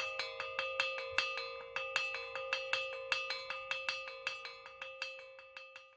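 A bell-like struck metal instrument rung over and over on one pitch, about four to five strikes a second, the ringing carrying on between strikes. The strikes grow quieter toward the end and the sound then cuts off.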